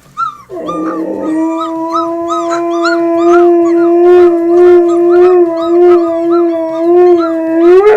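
A husky howling one long, steady note that starts about half a second in and holds for about seven seconds. Over it run short, repeated high cries from husky puppies.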